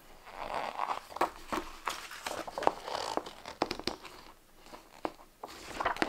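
Paper rustling and crinkling, with a few light clicks, as game rulebook booklets and a loose printed sheet are handled.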